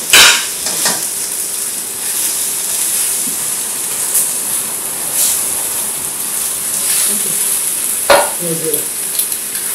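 Food sizzling in a frying pan on a stove as it is stirred, a steady hiss. A utensil knocks sharply against the pan just after the start and again about eight seconds in, with a few lighter knocks between.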